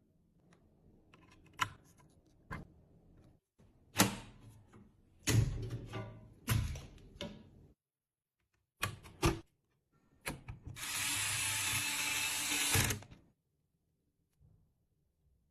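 Computer parts being handled and fitted: scattered sharp clicks and knocks, then about two seconds of steady noise in the second half.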